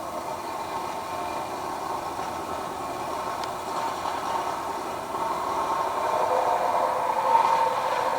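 Construction machine running with a steady mechanical drone that carries a few held humming notes, growing louder about five seconds in.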